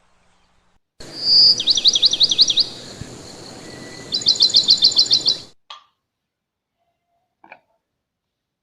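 Songbird singing: a clear whistled note, then a quick run of about eight down-slurred notes, and later a fast trill of about ten notes, over a steady hiss. The song starts and cuts off abruptly, like an inserted clip.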